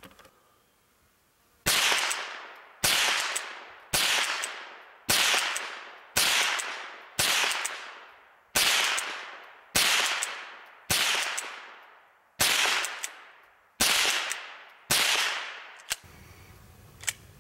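FN Browning Trombone .22 LR pump-action rifle fired rapidly, twelve sharp shots at about one a second, each trailing off over about a second.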